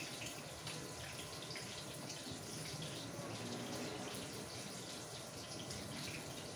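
Lumpia Shanghai (small spring rolls) shallow-frying in very hot oil in a pan: a steady sizzle with fine crackling.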